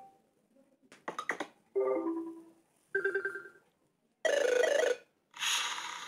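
The Nokia G20's built-in Android notification tones, played as previews one after another as each is tapped in the list. There are about five short clips in a row, each a second or less, cut off by the next: first a quick run of sharp clicks, then two pitched chimes, then two hissy rattling bursts.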